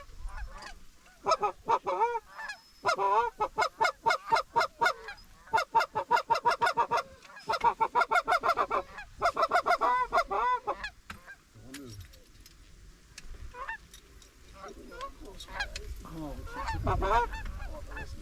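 Goose honks and clucks in fast, rapid-fire runs, several bursts of them back to back, thinning out about two-thirds of the way through and picking up again near the end: geese being called in to the decoys.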